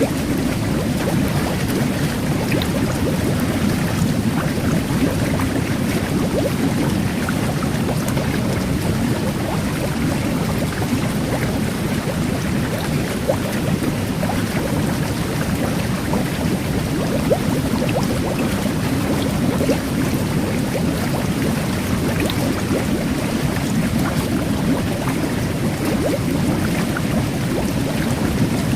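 Jet bath churning water in a steady low rush, with a fine fizz of carbonated micro-bubbles and scattered tiny pops on top.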